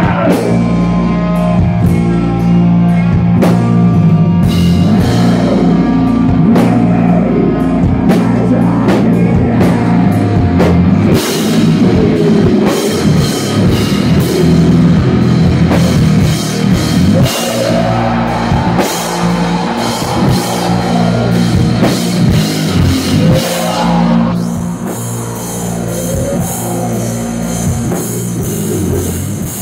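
A rock band playing loudly live: electric guitars, bass guitar and a drum kit.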